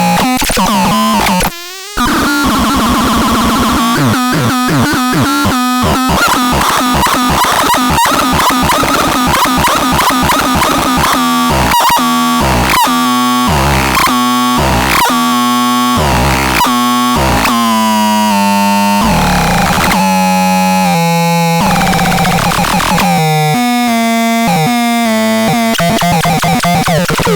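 Synthesizer playing a run of electronic tones rich in overtones: notes change pitch quickly, with short stabbing notes in the middle and a few sliding pitch sweeps.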